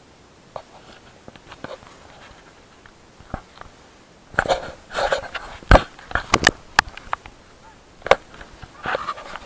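Footsteps scuffing on gravelly dirt with knocks and rubbing from a hand-held camera as its holder walks. A few scattered clicks at first, then a dense run of scuffs and sharp knocks from a little past the middle.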